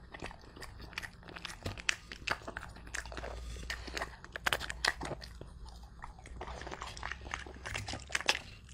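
French Bulldog chewing apple: an irregular run of crisp, crunching bites, several a second.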